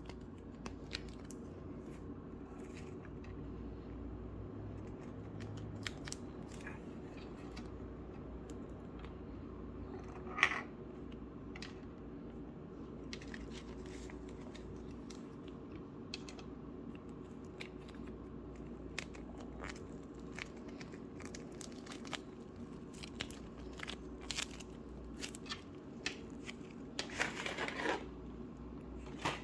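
Play-Doh slime worked by hand, giving scattered small clicks and crackles, with a louder crackle about ten seconds in and a busier run of crackling near the end. A steady low hum sits underneath.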